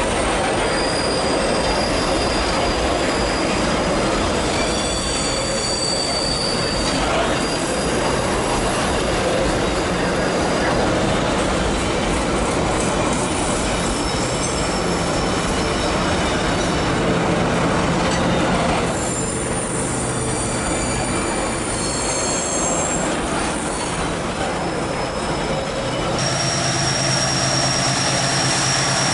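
Empty freight hopper cars rolling past on steel rails, the wheels squealing in thin high-pitched notes that come and go over a steady rumble. About 26 seconds in the sound changes to the steady low drone of an approaching diesel locomotive's engine.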